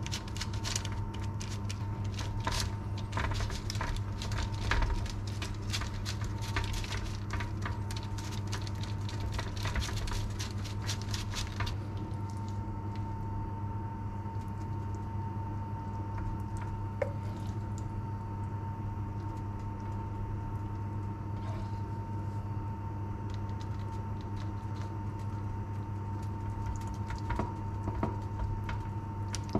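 A metal fork scratching and pressing into soft roasted eggplant halves on parchment paper, a quick run of scratchy strokes that stops about twelve seconds in. After that, a steady low hum with a few soft taps as a spoon fills the halves.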